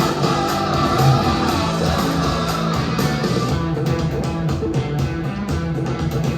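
Guitar-based music with a steady beat, played through JBL Nano K5 studio monitor speakers and picked up by a phone's microphone in the room.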